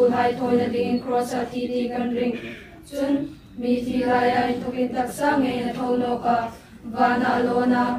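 Voices singing a slow song in long held notes, phrase by phrase, with short breaks about three seconds in and again about six and a half seconds in.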